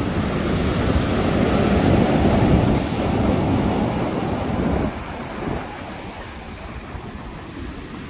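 Rough sea surf: waves breaking and washing up a pebble beach. It is loud for about the first five seconds, then drops off as the wash recedes.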